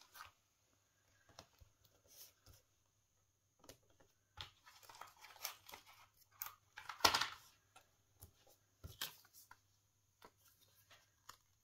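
Paper being handled and stuck down on a notebook page: scattered short rustles and crinkles, with a louder tearing rasp about seven seconds in.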